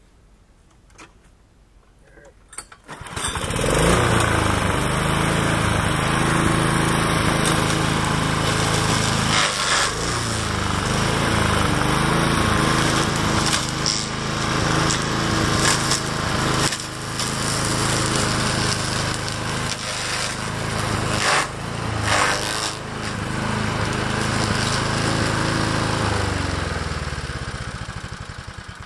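Custom-built 5 hp Toro lawnmower engine starts about three seconds in and comes up to speed, then runs steadily while the blade cuts through small poplar saplings with several sharp cracks. The engine winds down near the end.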